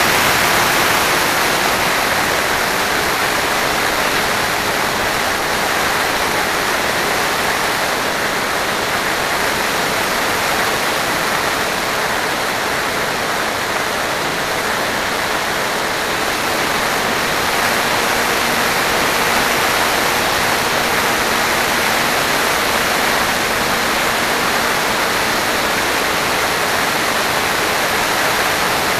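Steady rush of airflow and propeller noise on an FPV aircraft's onboard camera microphone in flight, with a faint hum that wavers slightly in pitch under it.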